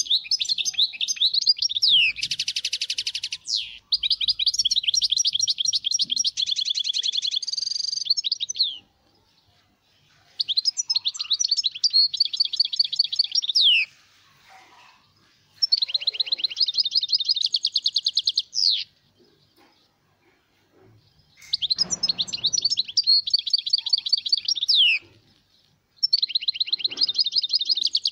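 European goldfinch singing: about six phrases of rapid, high twittering trills, each a few seconds long, with pauses of a second or two between them.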